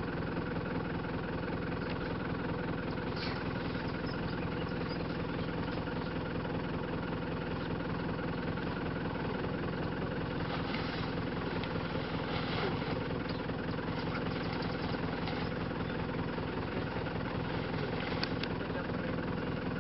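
A vehicle engine idling steadily, with an even, unchanging hum.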